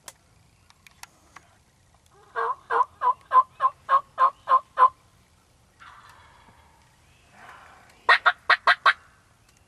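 Wild turkey calling: a run of about ten evenly spaced yelps at about four a second, then near the end a quick burst of five sharper, brighter cutting notes.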